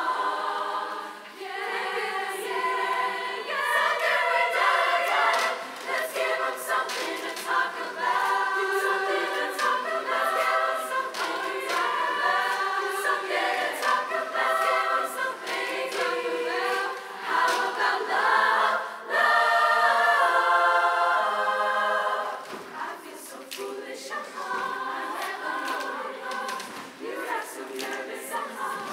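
Women's chorus singing a cappella in close barbershop harmony, dropping to a softer passage about 22 seconds in.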